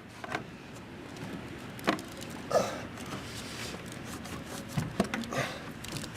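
A few scattered knocks and clicks of an engine-bay part being pushed and worked into place by hand, over a steady low background.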